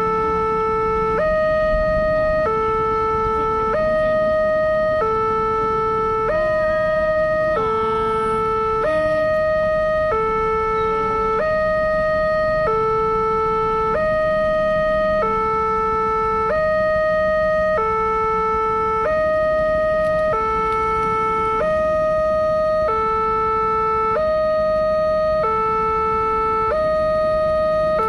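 Railway level-crossing warning alarm sounding from its pole-mounted loudspeaker: an electronic two-tone signal alternating between a lower and a higher note, each held a little over a second, warning that a train is approaching.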